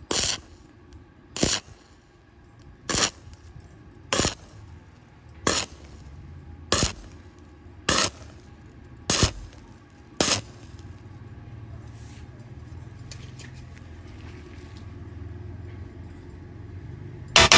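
Stick-welding arc on thin round steel pipe, struck in short crackling bursts about one and a quarter seconds apart, nine times over the first ten seconds. A low steady hum follows, with one more loud burst near the end. The pulsed welding burns holes through the thin pipe wall.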